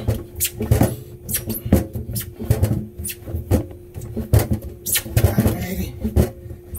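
Dough for Jamaican flour dumplings being kneaded by hand, making an irregular run of soft thumps and slaps, about two or three a second.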